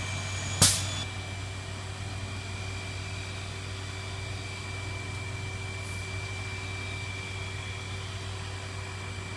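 Steady machine hum of a workshop with a faint high steady whine over it, and one loud sharp click about half a second in.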